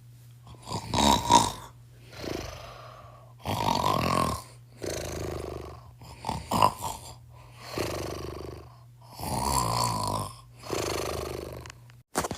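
Snoring: a regular run of snoring breaths, one about every one and a half seconds, louder and softer breaths alternating, over a steady low hum.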